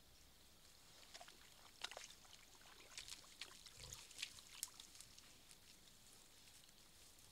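Faint wet slurps, splashes and small clicks of wild boar and piglets drinking and rooting in a shallow muddy pool. The sounds come as a scatter of short sharp ticks between about one and five seconds in, with one soft thud among them.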